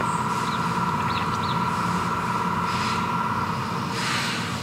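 Steady mechanical hum with a constant high whine, which stops about four seconds in.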